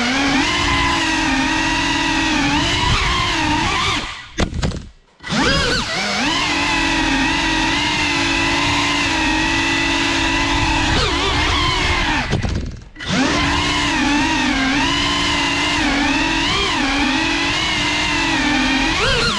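Cinelog 35 cinewhoop drone's ducted propellers whining steadily, the pitch wavering up and down with the throttle. Twice the whine drops away for about a second, around four and around twelve seconds in, then picks up again.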